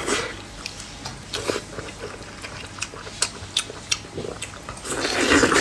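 Close-miked eating sounds: scattered short, wet clicks and smacks of chewing, with a longer, louder wet sound near the end.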